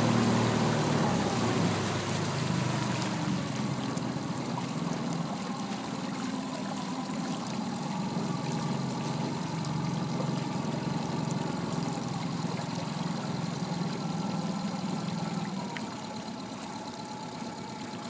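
Small boat's outboard motor running steadily at low speed, with light water noise. It gets quieter near the end.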